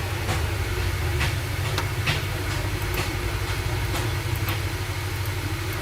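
Steady low mechanical hum with a dozen or so scattered, irregular clicks.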